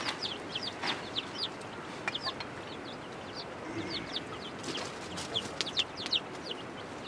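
Chicks peeping in quick, high, falling notes several times a second, with a hen's low cluck about four seconds in. A few sharp clinks of a ladle against steel pots and plates.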